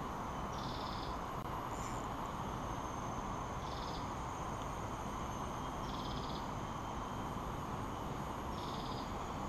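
A short, buzzy trilled animal call repeated five times, about every two to three seconds, over a steady background hiss.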